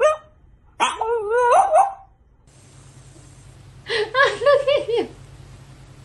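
French bulldog vocalizing: a short yelp at the start, then a wavering, howl-like call about a second in that lasts about a second. Near the end comes a quick run of about six short high calls.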